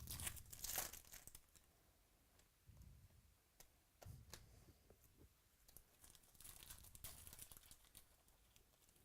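Faint tearing and crinkling of trading-card pack wrappers being opened, in short scattered rustles with small clicks, strongest at the start and again about two-thirds of the way through.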